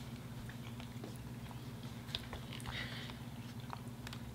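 Faint eating sounds at a table: scattered small clicks and taps of chewing and a spoon in a plastic container, one sharper tick about two seconds in, over a steady low hum.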